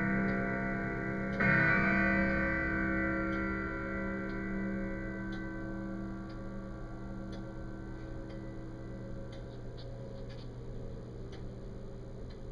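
Sligh triple-chime grandfather clock striking the hour at twelve o'clock: one strike about a second in, which rings and slowly dies away over several seconds. As it fades, the clock's steady ticking comes through.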